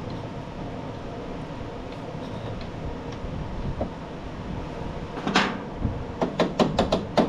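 A steady background hum, then from about five seconds in a rapid series of sharp metal knocks, about four or five a second, as the mower's wheel and axle assembly is worked on.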